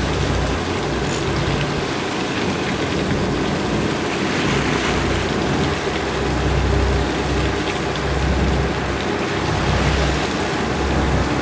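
A fishing boat's engine rumbles under the rush of water along the hull as the boat moves. The low rumble rises and falls every couple of seconds.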